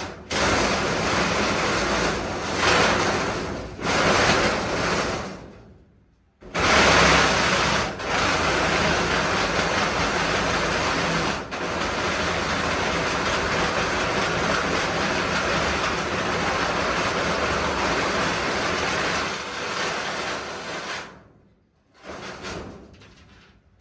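Reciprocating saw (Sawzall) cutting through a galvanized sheet-metal furnace return boot. It runs in long steady stretches, stops briefly about six seconds in, then cuts until near the end, with one short last burst.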